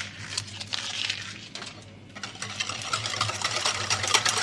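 A wire balloon whisk beating a runny egg, oil and sugar mixture in a glass bowl: a few light taps at first, then from about two seconds in a fast, steady run of clicks as the wires strike the glass, growing louder.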